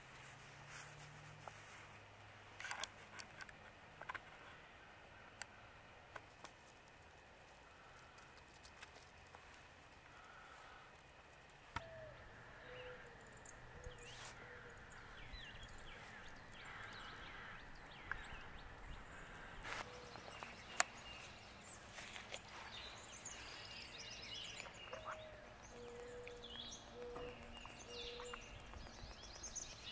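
Faint woodland ambience with scattered bird chirps and calls, growing busier in the second half, and a few short low repeated notes. Sharp clicks or snaps are heard now and then, the loudest about two-thirds of the way through.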